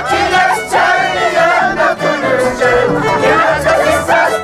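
Huayno played on violin with an Andean harp's stepping bass, with several voices singing along.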